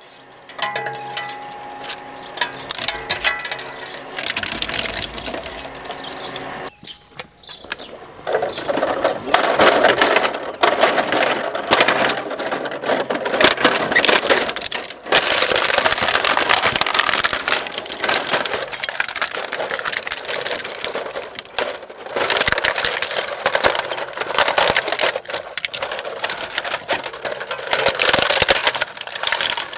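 The steel cutter discs of a twin-shaft shredder crunching and cracking a hard plastic toy garbage truck. After a few quieter seconds it becomes a dense, continuous run of snaps and crackles.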